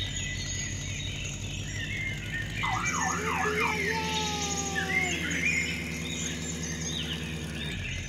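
Cartoon sound effects for a toy-like police monster truck: a steady low engine hum under bird chirps. About three seconds in there is a quick warbling siren-like tone, then falling whistles as the truck comes down the slope.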